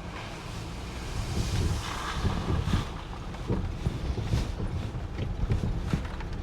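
Wind buffeting the microphone: an uneven low rumble with irregular thumps.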